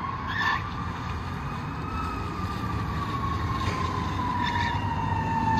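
Fire engine's wail siren, its pitch rising slowly for about two seconds and then falling in one long glide, over a steady rumble of road traffic. Two short chirps cut in, one near the start and one about four and a half seconds in.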